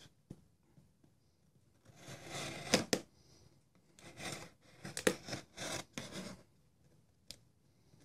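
A folding knife's blade slicing through packing tape and cardboard on a shipping box, in several separate scraping strokes starting about two seconds in, with a few sharp clicks.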